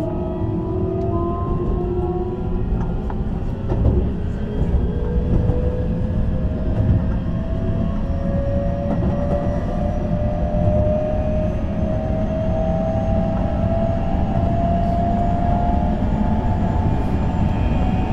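Keihan 7200 series electric train running: its motor whine climbs slowly and steadily in pitch as the train gathers speed, over a steady rumble of wheels on rail.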